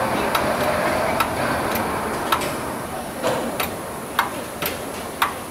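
Disc-type tool magazine of a vertical machining center turning in reverse, giving regular sharp clicks about twice a second over a steady machine hum.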